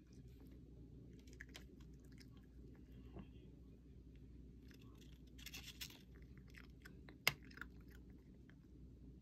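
Cat crunching dry kibble: faint, irregular crunches, thickening into a cluster a little past halfway, with one sharp click about seven seconds in.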